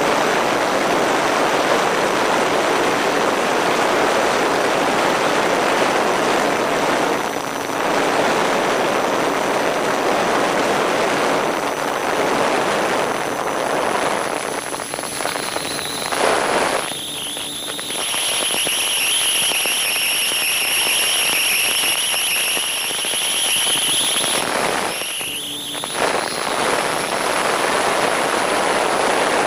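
Wind rushing past a camera mounted on a flying RC plane. The high whine of the MFD Crosswind Nimbus Pro's propeller motor rises out of the wind about halfway through, holds steady for several seconds, then drops away.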